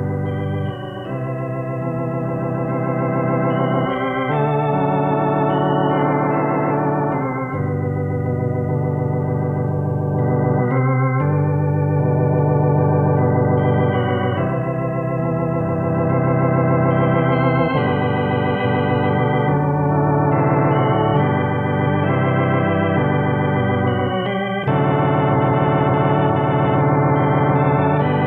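Hammond organ playing a gospel praise song in full held chords that change every second or two over a sustained bass.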